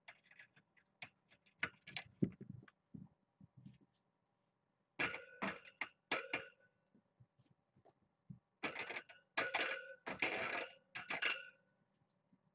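Kittens playing with a string toy on the floor: scattered light clicks and taps, then louder bursts of rustling and clinking about halfway through and again near the end.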